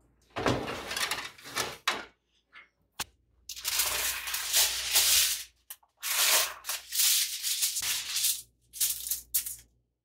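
Aluminium foil crackling and rustling as a sheet is pulled from a wall dispenser and spread out, in several loud crinkly bursts with short pauses between them.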